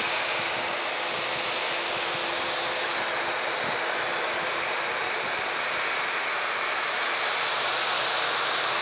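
Boeing 787-8 Dreamliner's GEnx turbofans running as the jet taxis, a steady rush of jet noise with a faint low hum that fades out about three seconds in.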